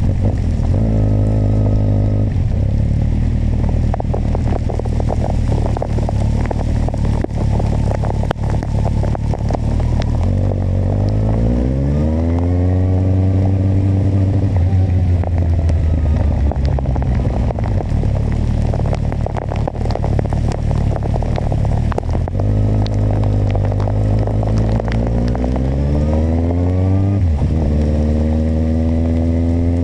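Kawasaki motorcycle engine running under way. It climbs in pitch twice as it accelerates, the second time ending in a sudden drop near the end like a gear change, over a steady rush of wind and road noise.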